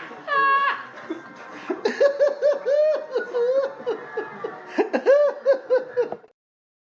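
High-pitched laughter, a rapid run of repeated 'ha' sounds, that cuts off suddenly about six seconds in, leaving dead silence.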